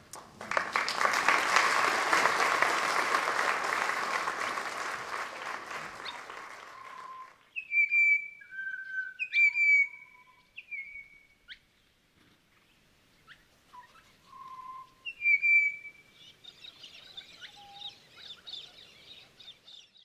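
Audience applauding for about seven seconds, dying away. Then recorded birdsong: a run of short, clear whistled bird notes and slurs with pauses between them, and a faint, higher chatter of chirps near the end.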